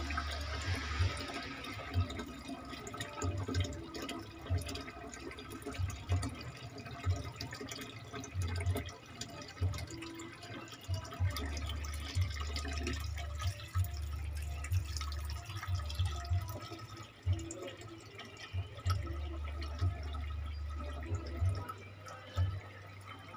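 Water running from a small hose into a glass aquarium tank, splashing and dripping onto the water and stones in it. A low hum comes and goes underneath.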